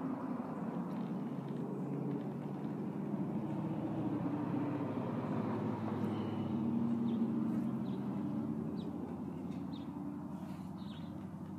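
A motor engine's hum, swelling to its loudest about seven seconds in and then fading, as of a vehicle going past.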